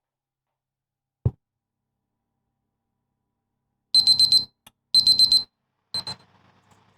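A single dull thump, then an oven's electronic beeper sounding in three groups of rapid high-pitched beeps: two of about half a second each, a second apart, then a shorter one.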